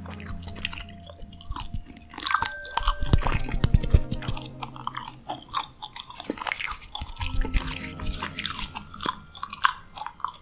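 Close-miked gum chewing: a run of wet mouth smacks and clicks, irregular and uneven in loudness. Soft held tones of ambient background music sit underneath.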